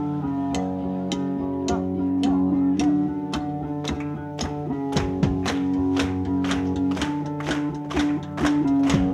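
Live band playing: guitar chords ringing under steady drum hits about twice a second. About five seconds in, the drumming gets busier, around three to four hits a second.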